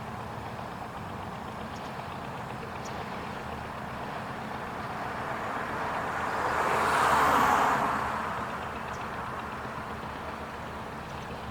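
Steady engine drone, with a vehicle passing close by: its noise swells to a peak about seven seconds in and fades away again.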